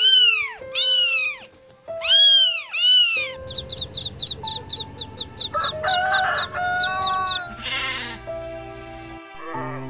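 Farm animal calls over background music: a few loud cat meows rising and falling in pitch, then a fast run of short chicken peeps and calls, then a quavering sheep bleat near the end.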